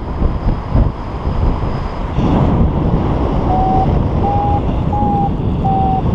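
Wind buffeting the camera microphone of a paragliding pilot in flight. From about halfway through, a variometer gives four short beeps a little under a second apart: its climb tone, the sign that the glider is rising in a thermal.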